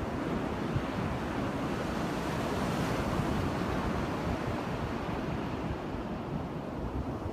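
Steady wind noise buffeting the phone's microphone, mixed with the wash of surf on the beach; a gust swells briefly about three seconds in.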